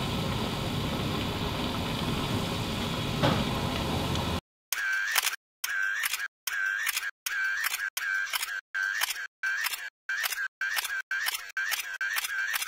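A slice of battered bread frying in hot oil in a pan, sizzling steadily. After about four seconds the sizzle stops abruptly and gives way to a quick string of short, clipped sound effects, about two a second, each cut off by a brief silence.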